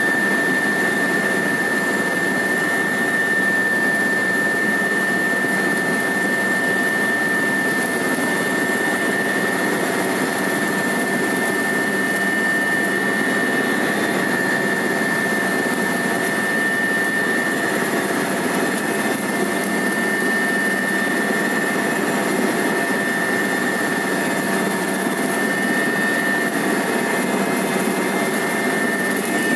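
Helicopter cabin noise in flight: steady engine and rotor noise with a constant high-pitched whine, heard from inside the cabin.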